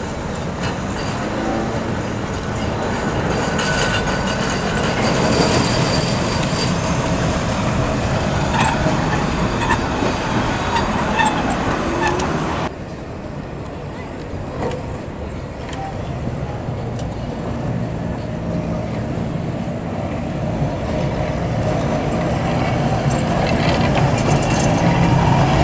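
Heritage electric tram running on street track: steady motor and rail noise with a few thin high squeals in the first half, background voices, then an abrupt change about halfway to a lower, steadier hum that grows louder towards the end.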